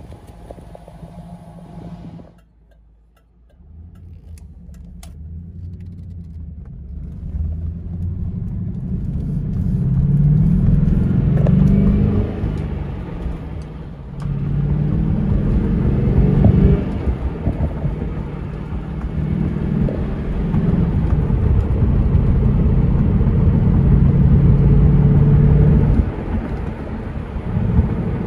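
2001 Chevrolet Camaro Z28 SS's 5.7-litre LS1 V8 running at the tailpipes, then, after a brief break, heard from inside the cabin while driving, with several surges in engine note as it accelerates.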